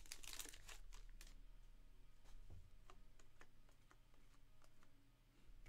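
Faint, irregular light clicks of a freshly opened stack of Panini Prizm trading cards being handled and slid through the hand; otherwise near silence.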